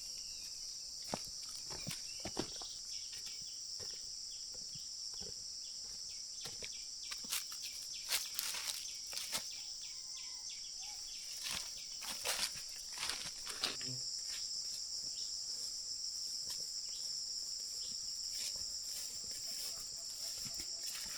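Steady chorus of crickets and other insects, with a dozen or so scattered knocks and snaps of handwork, mostly in the first two-thirds.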